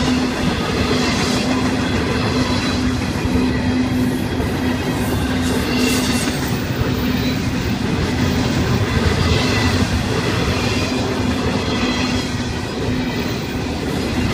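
Double-stack intermodal freight train of container well cars rolling past at steady speed, with continuous wheel-on-rail noise and a few brighter swells of clatter as trucks pass.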